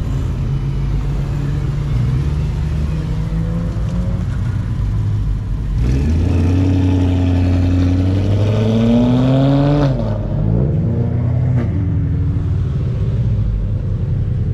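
Car engines running at low speed, one revving up with a rising pitch in the middle before letting off about ten seconds in.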